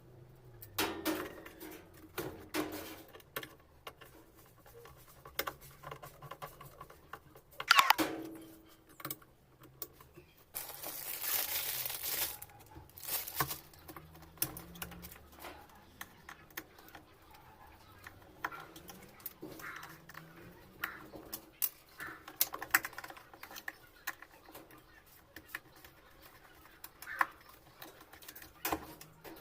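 Irregular light clicks and knocks of parts and tools being handled during hand assembly of a washing machine's mechanism, with one sharper knock about eight seconds in and a short hiss-like rustle about eleven seconds in.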